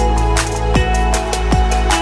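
Electronic background music with a steady beat, held synth tones and bass notes that slide downward in pitch.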